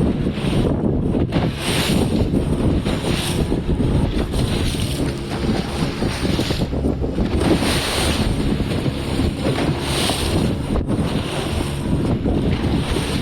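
Fishing boat under way at sea: a steady low engine drone under heavy wind on the microphone, with water splashing against the hull in surges every second or so.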